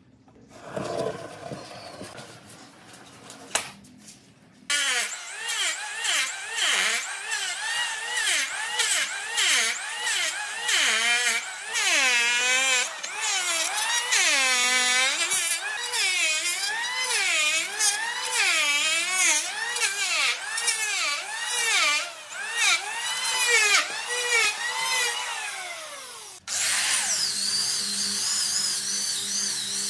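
Electric hand planer shaving the cut top of a tree stump, starting about five seconds in; its motor whine dips and recovers in pitch again and again as the blades bite and clear. About 26 seconds in it switches abruptly to an angle grinder with a sanding disc running at a steadier pitch.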